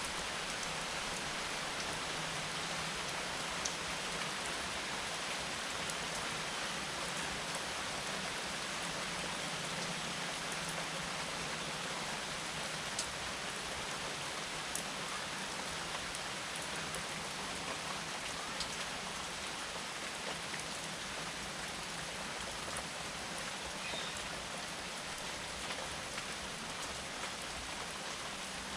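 Steady rain falling, an even hiss with scattered single drops ticking on a surface.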